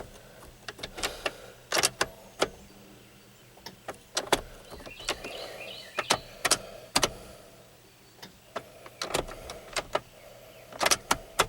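Ignition key being cycled on and off to prime the fuel system, so fuel pressure is built up before starting: a series of sharp, irregular key and switch clicks, with the electric fuel pump humming faintly a couple of times between them. The engine is not yet started.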